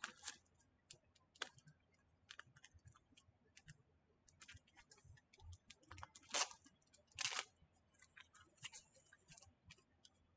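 Faint scattered clicks and crinkles of plastic card sleeves and tape being handled and pulled apart by fingers, with a couple of slightly louder crinkles about six and seven seconds in.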